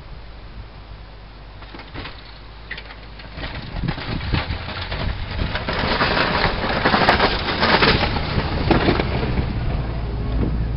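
1983 GMC Jimmy's V8 engine running under load while its front plow pushes and scrapes through deep snow, the rushing sound of the snow growing louder as the truck comes close, loudest about six to eight seconds in, then easing as it passes.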